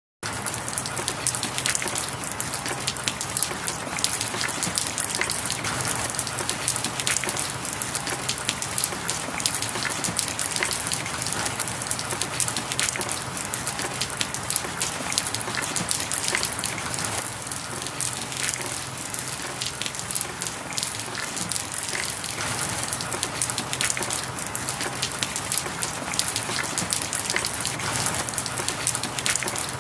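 Steady rain: a continuous hiss dotted with many small drop ticks.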